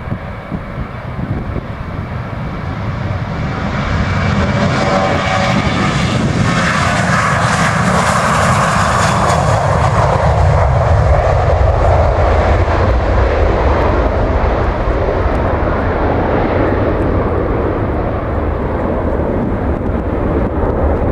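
Ryanair Boeing 737-800's twin CFM56 jet engines at takeoff power as it rolls, lifts off and climbs away. The roar builds over the first few seconds, and its pitch falls as the aircraft passes, leaving a deep rumble.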